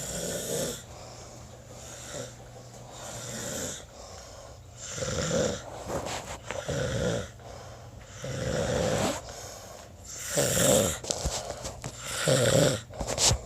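A man snoring in his sleep: a run of snores on his breaths, getting louder over the last few seconds.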